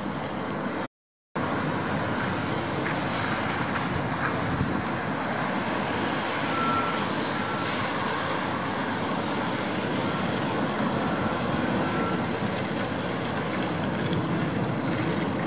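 Steady vehicle and road-traffic noise, cut by a brief dropout about a second in. Faint short beeps come and go in the middle.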